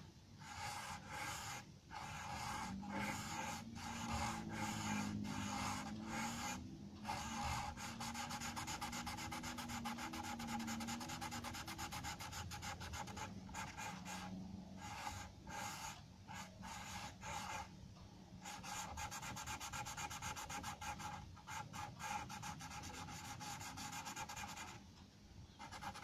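Charcoal pencil scratching on paper in fast back-and-forth shading strokes, stopping briefly a few times between runs of strokes.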